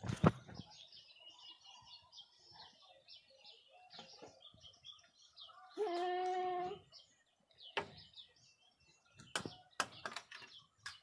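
A goat bleats once, a steady call about a second long, a little past the middle. Small birds chirp faintly throughout, with a sharp knock just after the start and a few more near the end.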